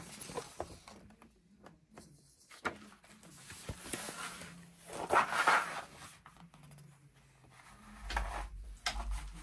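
Pages of a paper instruction manual being leafed through by hand: soft rustles and page flips, the loudest about five seconds in, with a low handling bump near the end.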